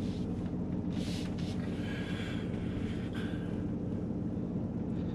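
Ram TRX's supercharged 6.2-litre V8 running steadily at low revs as the truck crawls slowly over rough dirt.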